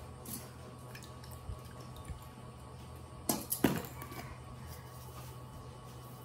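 Plastic seasoning jars handled on a table: two sharp knocks about a third of a second apart, with a few fainter clicks, over a low steady hum.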